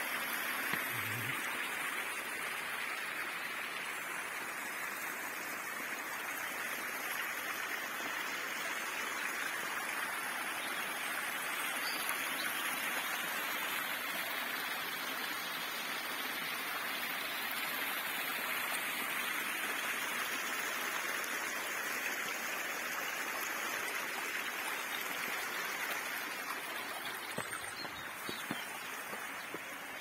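Small shallow stream running over stones and pebbles: a steady rush of water.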